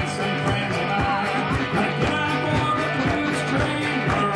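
Blues band music: electric guitar over a steady beat.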